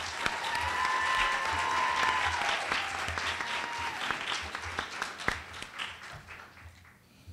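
Audience applauding. A long high whoop rises over the clapping for the first two seconds, and the clapping dies away over the last couple of seconds.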